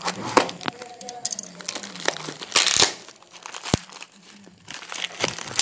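Packing wrap and plastic being crumpled and torn off by hand as a motorcycle silencer is unwrapped. The rustling comes in irregular bursts with a few sharp clicks, loudest about halfway through.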